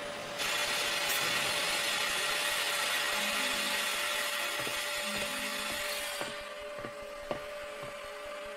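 Victorian beam steam engine hissing steam, a steady rushing hiss that fades out about six seconds in. A few faint mechanical clicks follow.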